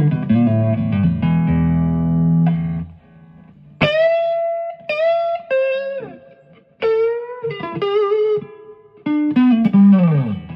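Electric guitar played in stereo through two amps, an Orange Crush and a Boss Katana. A low chord rings for the first couple of seconds, then single-note lead phrases follow with string bends and vibrato. Near the end a note slides down in pitch.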